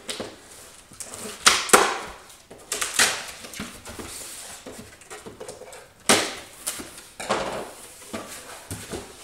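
Knife slitting packing tape on a cardboard box, several sharp ripping swishes, and the cardboard flaps being pulled open.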